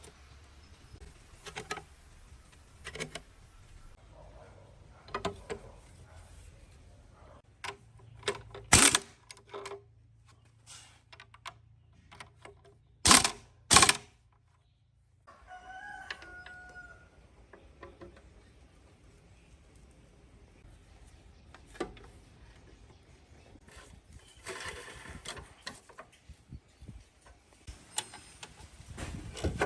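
Scattered clicks and knocks of hand work on engine parts, with three loud knocks about nine seconds and thirteen to fourteen seconds in. After a brief dropout, a rooster crows in the background.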